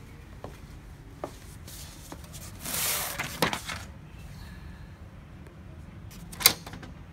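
Plastic casing of an HP LaserJet M203dn laser printer being handled and pried apart: a few light clicks, a rustling scrape about three seconds in, and a single sharp plastic snap near the end as the side panel's clip comes loose.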